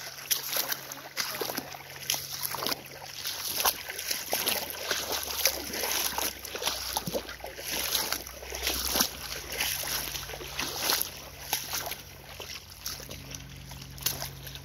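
Feet wading through a shallow river, splashing and sloshing water with irregular steps, over a faint steady low hum.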